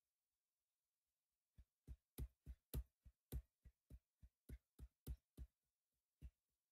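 A run of sharp, short clicks from operating the computer, roughly three a second at uneven spacing, starting about a second and a half in, while the web page is scrolled down.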